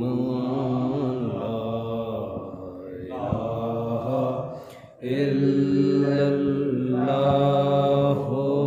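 A voice chanting an Islamic devotional chant in long, drawn-out, wavering notes, breaking briefly for breath about five seconds in.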